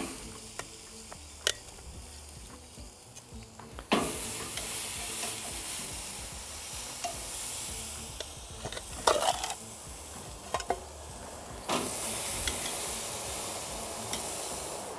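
Raw pork ribs being laid onto a hot smoker's metal grate: scattered clicks and knocks against the grate over a steady hiss that turns louder about four seconds in and again near twelve seconds.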